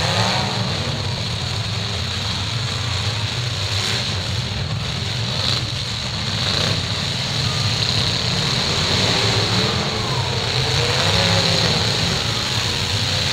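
Several demolition derby cars' engines running and revving together, rising and falling in pitch, with a few sharp knocks a few seconds in.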